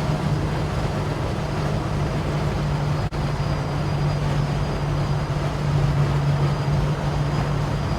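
Holden HK's engine drone and road noise inside the cabin, cruising at a steady speed.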